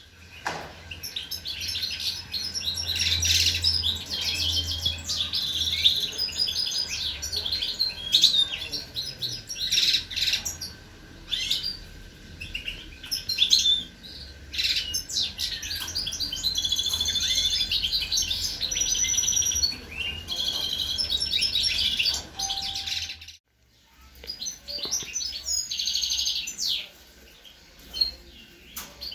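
Many caged songbirds chirping and twittering at once, a dense, overlapping chatter, broken by a brief silence about three-quarters of the way through.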